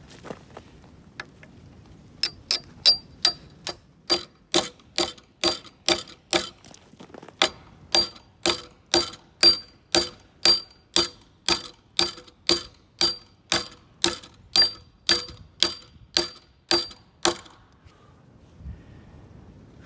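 A hammer driving a carriage bolt into an undersized hole in a steel bracket, so that the bolt's square neck forces its way into the steel and won't spin. There are about two ringing metal blows a second, with a brief pause about a third of the way through.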